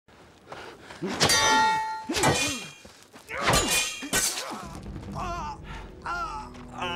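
Sword blows clanging on metal: four loud, ringing clangs over about three seconds, followed near the end by a man's strained, wavering groans.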